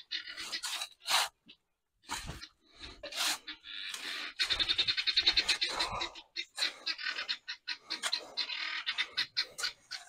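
Steel shovel scraping through and tossing dry concrete mix, spreading it in a slab form for a dry pour: a run of gritty scrapes and slides, with a denser, faster rattling scrape about halfway through.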